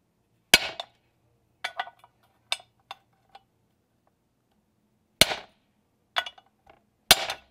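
Hammer striking a socket and extension used as a drift, driving the tight, thin-walled shift-shaft bearing out of a KTM 125SX aluminium crankcase half. About eight or nine sharp metallic blows at uneven intervals, the heaviest about half a second in, around five seconds in and near the end.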